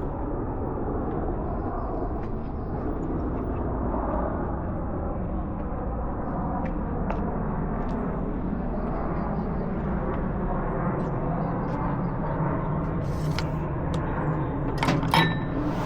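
Outdoor city park ambience with a steady low rumble and faint distant voices. A few sharp clicks come through, with a louder cluster near the end.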